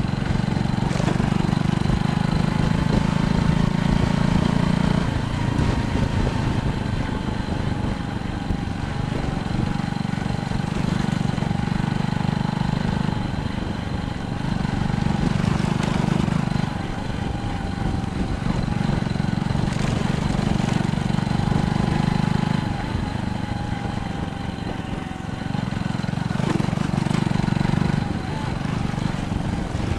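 Wind rushing over the microphone and tyre rumble from a bicycle riding along a road, with a low drone that comes and goes every few seconds.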